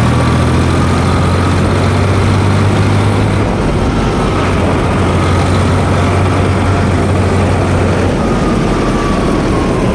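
Sonalika Tiger DI 50 tractor's diesel engine running steadily while the tractor drives along a road, a constant low hum with a faint high whine over it.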